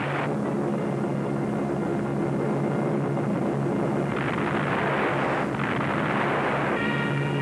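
Propeller-driven bombers' engines droning in a steady low hum, with a rushing noise that swells in about halfway through and again near the end.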